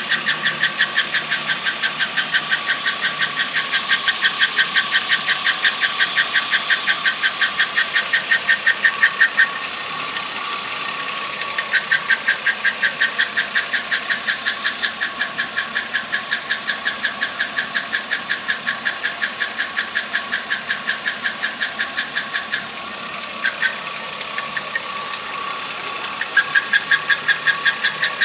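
2008 Chevrolet Impala engine running with a fast, even ticking noise, about six ticks a second, over a steady whine; the owner places the noise at the intake but cannot pinpoint it. The ticking stops twice for a few seconds and then comes back.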